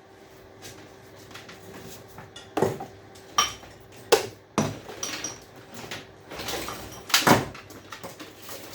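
Clatter and knocks of scrap electrical parts being handled and set down on a work surface: a handful of separate sharp impacts, the loudest about seven seconds in, over a faint steady hum.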